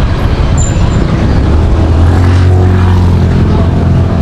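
Street traffic noise with a motor vehicle engine running close by, its steady low hum growing louder about a second and a half in and holding until near the end.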